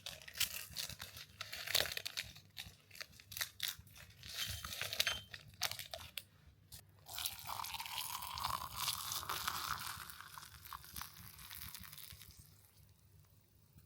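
Crinkly plastic wrapping of a packet of eight-treasure tea being torn open and handled, with many sharp crackles. About seven seconds in, the crackling gives way to a steady rushing sound for about three seconds, then quieter rustling.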